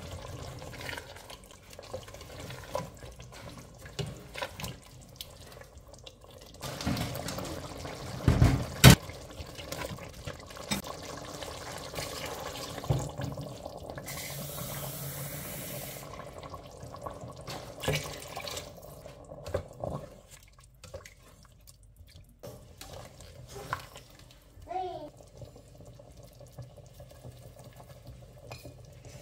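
A plastic spatula stirring and scraping meat curry in a steel pressure-cooker pot, with two sharp knocks on the pot about a third of the way in. Water runs for about two seconds midway through.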